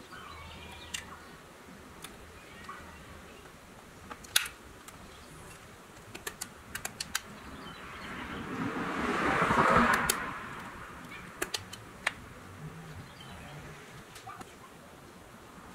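Scattered light clicks and taps from handling the small metal toy camper shell and its clear plastic window pane, with a louder rustle about nine to ten seconds in as the shell is turned over in gloved hands.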